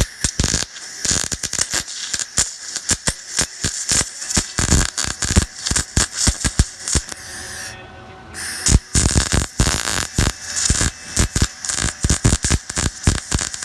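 Flux-core wire-feed welder arc crackling in a rapid, irregular sputter as a nut is welded onto a sheared stud. Two runs, with a short break about eight seconds in.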